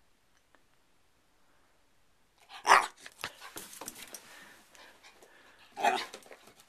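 Corgi puppy barking: two short, loud barks about three seconds apart, the first about two and a half seconds in, with softer noises between them.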